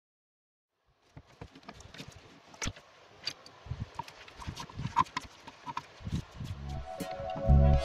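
Scattered clicks and knocks of metal parts being handled on a workbench, as a metal disc with a fabric polishing pad is lifted, turned over and set down. Background music comes in near the end.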